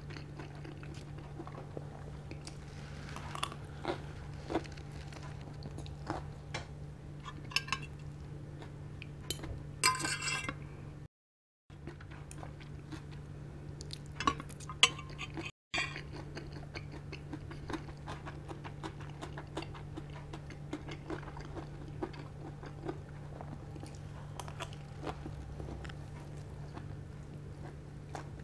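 Close-miked eating of pancit canton egg noodles: chewing, with a fork and spoon clicking and scraping on a ceramic plate as scattered sharp clinks. A steady low hum runs underneath, and the sound cuts out briefly twice near the middle.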